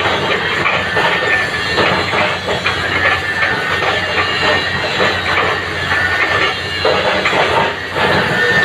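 Caterpillar 313 hydraulic excavator at work: the engine runs steadily under load amid continuous metallic clattering and an intermittent high squeal.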